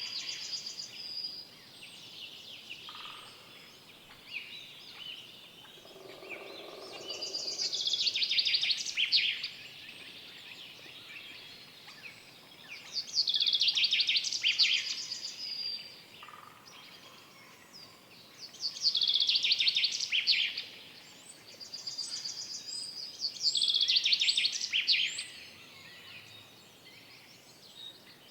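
A songbird singing the same fast, trilled phrase over and over, each phrase about two seconds long and repeated every five or six seconds, with fainter calls of other birds between. A brief lower-pitched sound comes about six seconds in.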